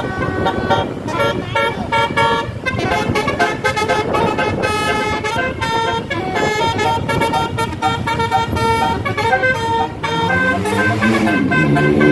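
Bus telolet horn, a Basuri multi-tone air horn, playing a fast melody of pitched notes that change every fraction of a second. Near the end a lower tone slides up and back down.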